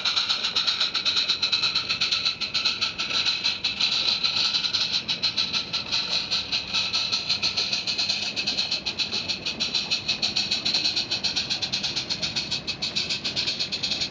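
Small live-steam garden-railway locomotive and its train of carriages and wagons running past on small-gauge track: a fast, even clatter of clicks over a steady hiss, keeping on throughout.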